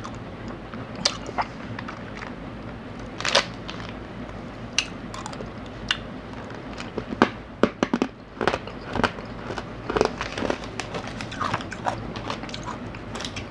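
Small plastic snack wrapper crinkling and crackling in the hands, with chewing of a sweet snack; scattered sharp crackles, thickest in the middle part.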